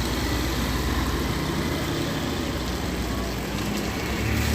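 Steady rumble and hiss of a rainy street with vehicle traffic.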